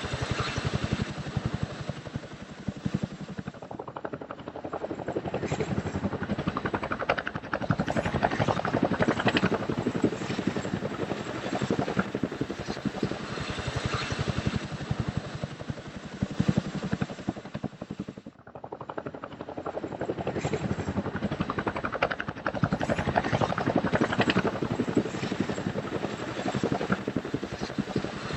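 Helicopter rotor and engine noise heard from aboard: a steady, rapid beating of the blades over a dense whine, dropping briefly about two thirds of the way through.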